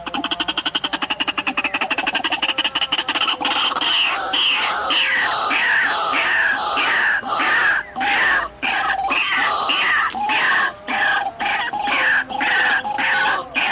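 White-breasted waterhen (ruak-ruak) calling. A fast rattling run of notes gives way about three seconds in to loud, harsh, repeated calls that slide down in pitch, two or three a second. This is the waterhen's territorial calling, the call used to lure the bird to the trap.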